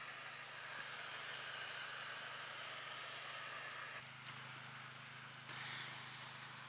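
Faint, steady low hum of a distant engine under a background hiss, shifting slightly in level about four and five and a half seconds in.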